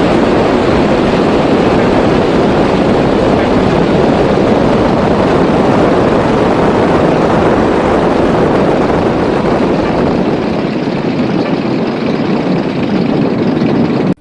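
Grumman G-164 Ag Cat seaplane's engine and propeller running loud and steady, a dense roar without any clear tone, easing slightly near the end and then cutting off abruptly.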